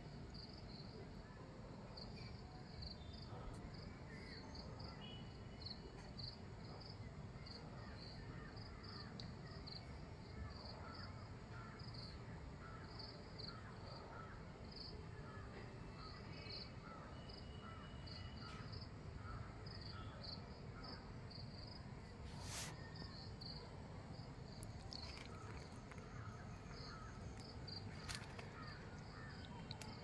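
Insect chirping in a steady run of short high pulses, roughly two a second, with scattered bird calls and chirps over it and a low rumble underneath.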